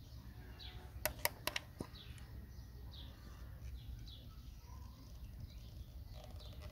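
A quick cluster of sharp plastic clicks about a second in as the spark plug wire's connector is pulled off a Mercedes ignition coil. Birds give short, falling chirps over and over in the background.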